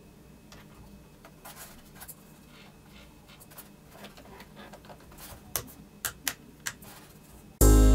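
Faint rubbing and light tapping of fingers on a homemade cardboard-cased RC transmitter as the stick tops are fitted and the joystick gimbals are worked, with a few sharp clicks about two-thirds of the way through. Music starts suddenly near the end.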